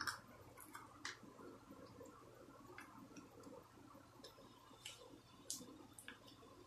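Faint, scattered crinkles and clicks of a cigarette pack's cellophane wrapper and foil being peeled and torn open by hand, with a handful of separate sharp ones spread through.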